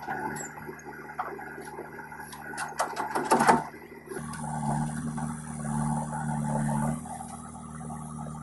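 Backhoe loader working, with a burst of clattering knocks about three seconds in as the bucket tips soil and stones into the trolley. From about four seconds in, a diesel engine hums steadily.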